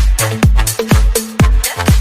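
Electronic dance music with a steady kick drum, a little over two beats a second, under a bass line.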